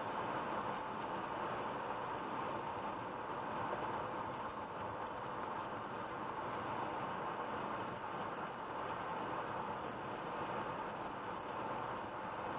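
Steady road noise inside a car cruising at highway speed: tyre noise and engine hum at an even level, with no change in pace.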